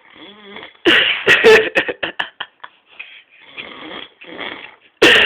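A man snoring in his sleep: a string of rough, loud snores, the loudest about a second in and again near the end.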